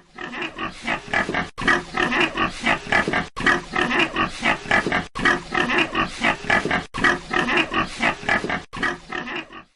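Pig grunting and oinking in rapid, continuous bursts, with a brief break about every two seconds.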